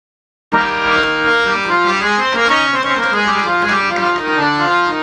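Harmonium playing the melodic instrumental introduction to a devotional bhajan, a moving line of short notes that starts abruptly about half a second in.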